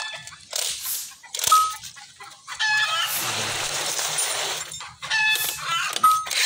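Chickens giving short pitched clucks and squawks, about one every two and a half seconds, among a few sharp metal clinks that ring briefly. A steady hiss runs for about two seconds in the middle.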